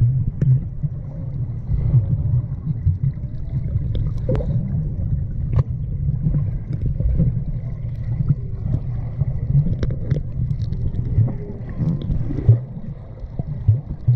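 Lazy-river water sloshing and gurgling close to the microphone, mostly a heavy low rumble, with scattered small splashes and knocks.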